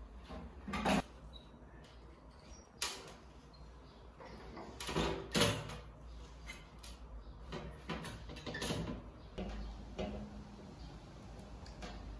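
Scattered knocks, clunks and scrapes of window-fitting work as the glass pane and its frame are handled and shifted, with the loudest pair of knocks about five seconds in.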